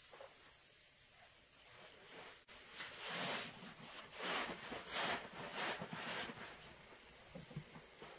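Soaked sponges squeezed in thick soap suds by gloved hands, making wet squelches. It starts quiet, then about three seconds in comes a run of about five squelches, with a few softer ones near the end.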